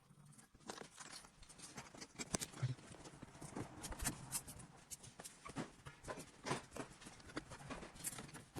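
Irregular light clicks and taps of hands handling wiring and plastic interior trim.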